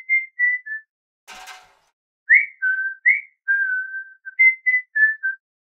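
A person whistling a short tune in clear, separate notes, some held and some sliding up, with a pause and a brief soft hiss about a second and a half in.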